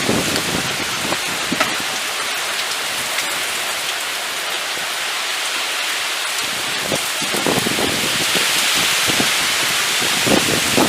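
Heavy rain pouring steadily during a thunderstorm, a dense even hiss, with a few low rumbling swells about two-thirds of the way through and again near the end.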